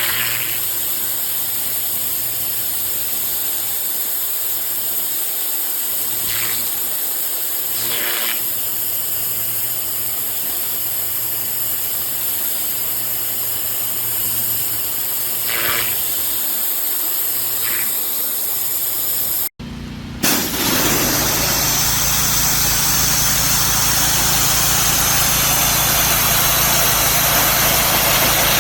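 Pressure washer running: a steady spray hiss over an engine's low hum, with a few brief swishes. It breaks off abruptly about two-thirds of the way through and is replaced by a louder engine hum and spray.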